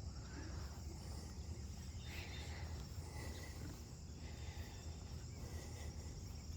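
Crickets chirping in a steady, high-pitched chorus over a faint low rumble.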